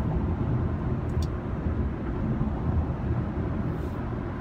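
Steady low rumble of a car being driven, road and engine noise heard from inside the cabin.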